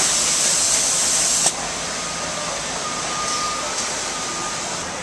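Automatic spray guns hissing as they spray water-based adhesive onto foam mattress rails; the spray cuts off abruptly about a second and a half in, leaving quieter machine noise with a faint steady whine.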